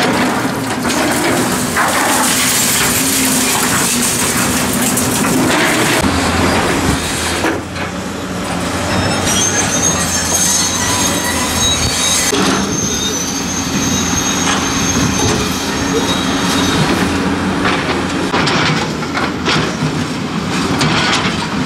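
Crawler excavators, one a Hyundai, demolishing damaged buildings: engines running under a continuous clatter and crash of falling concrete, metal and debris. A thin, high metal squeal runs through the middle of the stretch.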